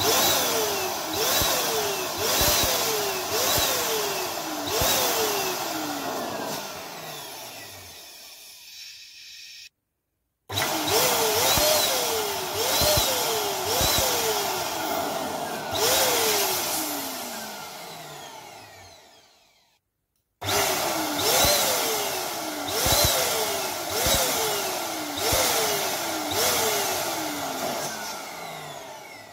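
Electric balloon inflator pump running as it blows up latex balloons, in three runs that break off abruptly between balloons. The sound wavers up and down in pitch a little more than once a second, and each run grows fainter toward its end.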